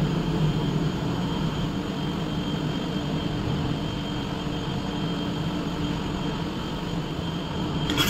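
Steady mechanical background hum holding a few constant tones, with a short sharp clack at the very end.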